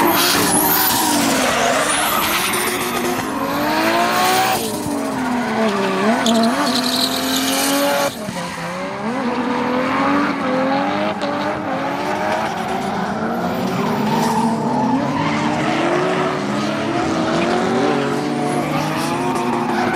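Drift cars' engines revving hard, the pitch swooping up and down over and over as the tyres skid and squeal, with an abrupt change in the sound about eight seconds in.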